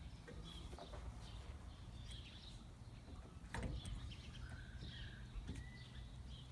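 Quiet handling of a camper's rear door and its springs: a few light clicks and one knock about three and a half seconds in. Faint birdsong runs underneath.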